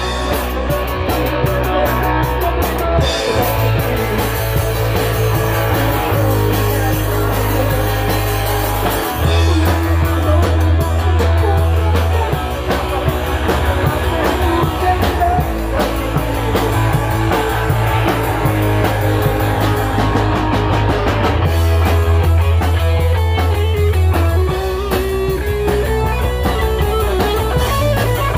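Rock band playing: electric guitar, bass and drum kit, loud throughout, with the bass holding long low notes that change every few seconds.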